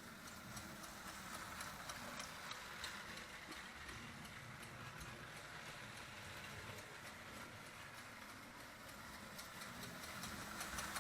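Marx O27 toy steam locomotive running on its track, its chug-chug sound unit giving a faint, steady, rhythmic chugging.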